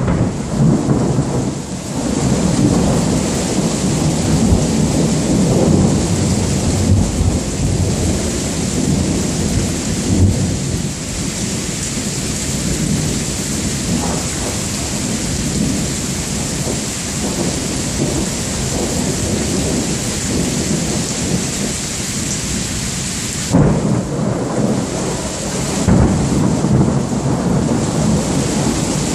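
Rain falling steadily through a thunderstorm, with thunder rumbling underneath. Sharp thunder cracks break in about three-quarters of the way through and again a couple of seconds later.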